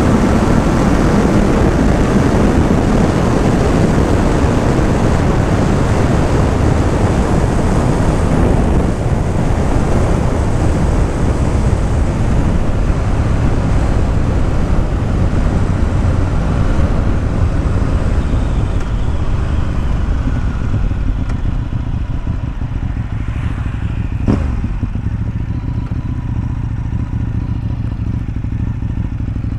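A motorcycle on the move under heavy wind rush on a helmet- or bike-mounted camera microphone, with engine and exhaust beneath it. It grows quieter over the last third as the higher sounds fade, and a single sharp click comes about 24 seconds in.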